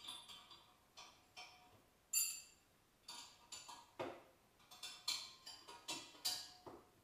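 Metal hand tools and bolts clinking and tapping irregularly, about a dozen sharp knocks, the loudest a ringing metallic clink about two seconds in.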